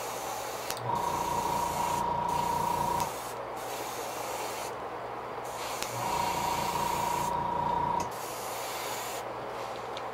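Airbrush spraying paint in short hisses that stop and start as the trigger is worked. Twice a small motor hums with a steady tone for about two seconds.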